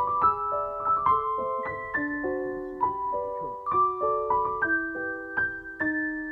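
Background music: a gentle piano melody, individual notes struck several times a second and left to ring over soft chords.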